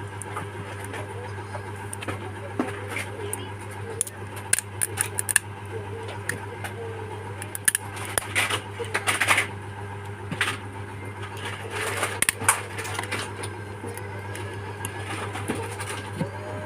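Small tools clicking and tapping against a smartphone's case and parts, in irregular bursts, over a steady low hum.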